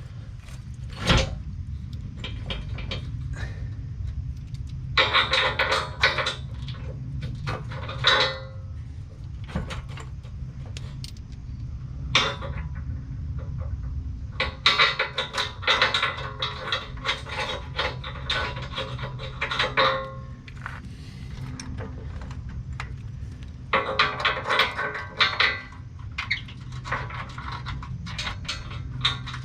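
Metal tools and parts clinking and scraping in several bursts, with a sharp knock about a second in, over a steady low hum.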